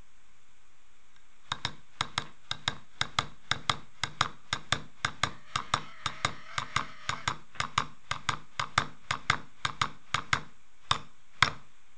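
A steel screwdriver tapped repeatedly against a pair of steel scissors: sharp taps at about three a second, starting about a second and a half in, with two louder taps near the end.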